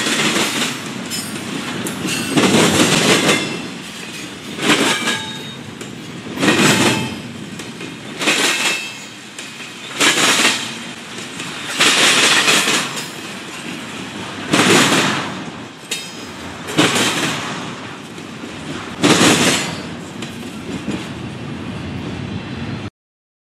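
Double-stack intermodal freight cars rolling past, their steel wheels clattering on the rails in loud surges about every two seconds, with some faint wheel squeal early on. The sound cuts off suddenly near the end.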